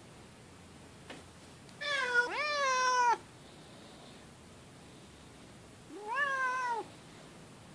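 Tortoiseshell domestic cat meowing: a short meow followed straight away by a longer one that rises and then falls, then one more meow about four seconds later.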